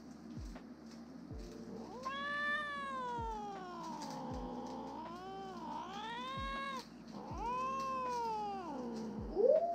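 Cat meowing: four long, drawn-out meows that bend up and down in pitch, the last one the loudest.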